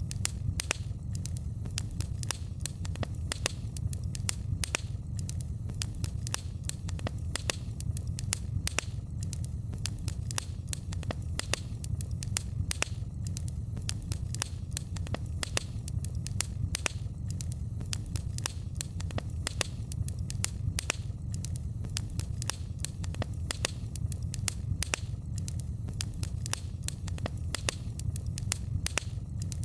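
Wood fire crackling, with many irregular sharp pops and snaps over a steady low rumble of the burning fire.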